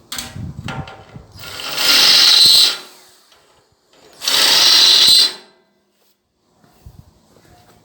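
A power tool run in two short bursts of about a second each, a couple of seconds apart, with lighter knocks and handling sounds around them.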